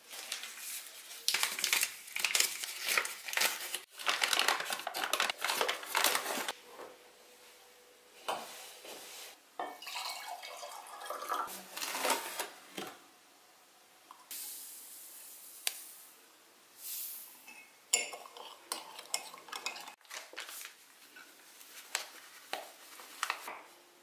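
Kitchen prep handling sounds while measuring baking ingredients: paper sugar and flour bags rustling, and a metal spoon scraping and clinking against a cup. These come in clusters of sharp clicks with short quiet gaps between them.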